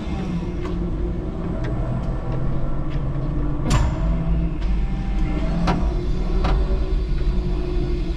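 5-ton electric forklift truck driving with a load: a steady low rumble with a motor hum, broken by a few sharp knocks and clanks. The loudest knock comes a little before halfway.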